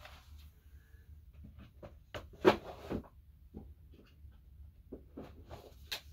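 CD cases being handled and sorted through: a run of small plastic clicks, knocks and rustles, with one louder clack about two and a half seconds in, over a low steady hum.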